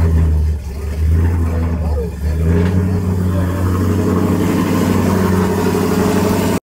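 Pickup truck engine running steadily at low speed with a deep hum, its tone shifting slightly about two and a half seconds in. Faint voices are heard early on, and the sound cuts off abruptly at the end.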